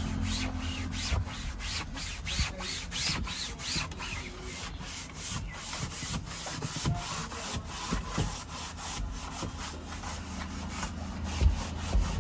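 Scrubbing the fabric headliner of a car with detergent: quick back-and-forth rubbing strokes, about two to three a second.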